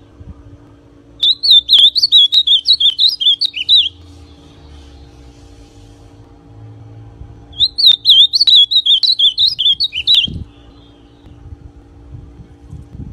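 A young male ultramarine grosbeak (azulão) singing two quick, warbling song phrases, each about two and a half seconds long, with a pause of a few seconds between them.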